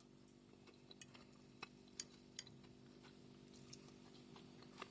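Very faint chewing of a mouthful of chicken-liver salad, a few soft scattered clicks, over a low steady hum.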